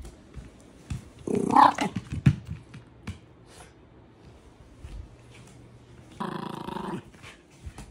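Shiba Inu growling playfully while worrying a cloth with its mouth and paws. There is one loud burst about a second and a half in and a steadier growl near the end, with light taps and rustles between.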